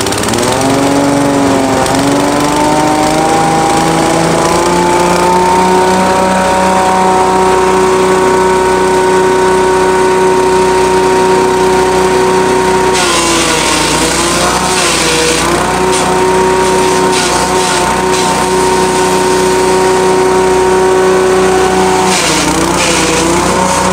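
Engine-driven grass chopper, belt-driven from a small single-cylinder engine, spinning up over the first few seconds to a steady whirring hum. About 13 seconds in and again near the end, the pitch sags with a rough crackle as moringa stems are fed in and chopped under load.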